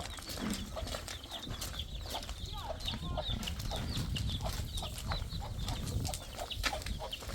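Farmyard fowl calling: many short, high chirps and peeps with some lower clucking calls, over a steady low rumble.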